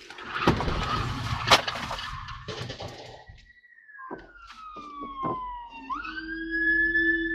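Car collision: loud crash noise with two sharp impacts in the first couple of seconds. Then a siren-like wail falls slowly in pitch, swoops back up near the end and holds.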